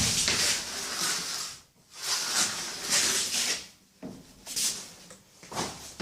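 Wooden rubbing and scraping in two long strokes of about a second and a half each, followed by shorter scrapes near the end.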